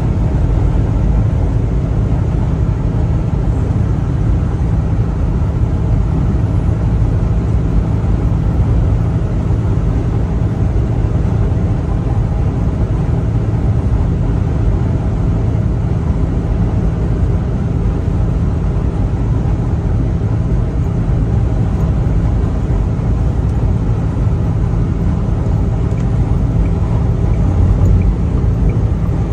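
Steady drone of a truck cruising at highway speed, heard inside the cab: deep engine and tyre-on-road rumble with no change in pace.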